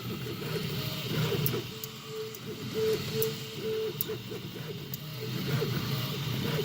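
Original Prusa i3 MK3 3D printer's stepper motors whining in short runs as the extruder moves along the X axis, broken by several sharp clicks from the X-axis stepper. The clicks are the fault being shown; the owner says they come mostly at certain points and when moving left.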